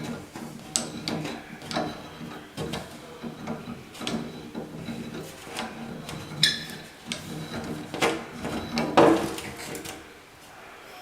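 Adjustable wrench working a brass shower valve stem loose from its fitting: irregular metal clicks, scraping and rubbing, with two louder clinks about six and a half and nine seconds in.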